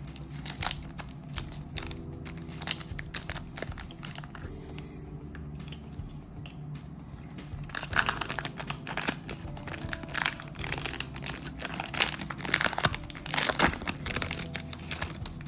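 Foil booster-pack wrapper being crinkled and torn open, with rapid irregular crackling that is densest about eight seconds in and again near the end. Soft background music plays underneath.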